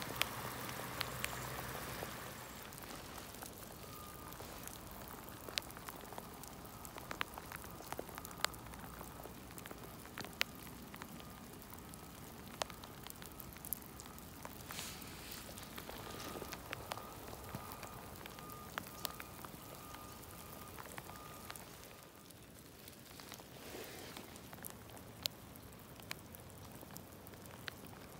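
Light rain falling, an even hiss with scattered sharp ticks of drops landing close by. A faint high tone comes and goes from about four seconds in until about twenty-one seconds.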